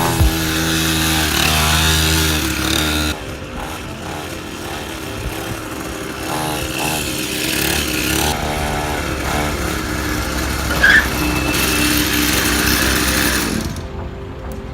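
Background music with buzzing, distorted tones; the level drops suddenly about three seconds in and again near the end.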